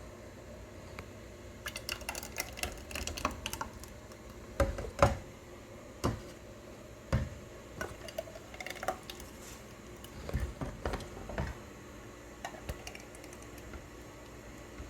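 Irregular clicks, taps and knocks of a spoon against metal cans as they are filled with bean batter, with a couple of louder knocks about a third of the way in.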